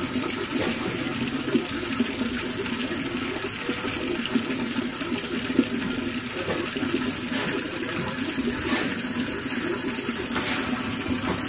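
Water splashing and churning steadily at the surface of a koi pond as a crowd of large, hungry koi jostle and gulp at it, with a few louder splashes.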